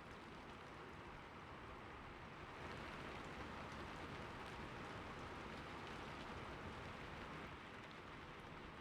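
Steady rain falling, an even hiss with a few faint drop ticks, swelling a little in the middle.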